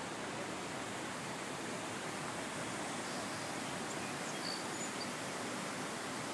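Steady rush of a shallow creek flowing over rocks, with a few faint high chirps about halfway through.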